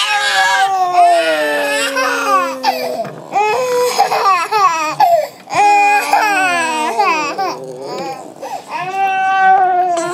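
French bulldog howling along with a crying baby: a series of long, wavering cries that slide down in pitch, the dog's howl and the baby's cry overlapping, with short breaks between them.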